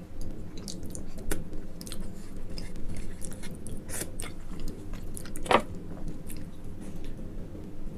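Close-miked mouth sounds of eating: chewing, with many short wet smacks and sucks as food is licked off the fingers. One smack about five and a half seconds in is louder than the rest.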